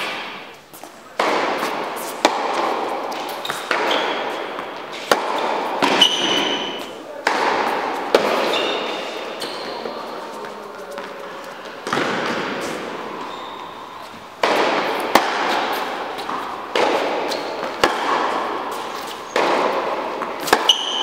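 Tennis ball struck by rackets and bouncing on an indoor hard court in a baseline rally: sharp hits about every second or two, each echoing in the hall, with short high squeaks of shoes on the court now and then.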